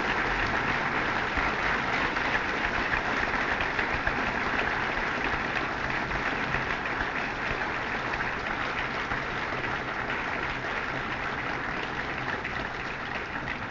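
Audience applauding, a dense steady clapping that slowly dies down toward the end.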